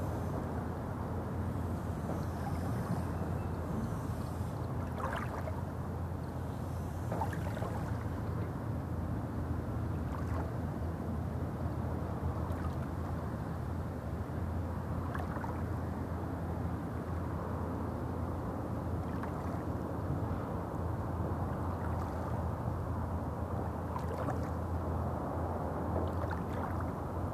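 Small waves lapping on a pebble lakeshore, with soft little splashes every few seconds over a steady low rumble.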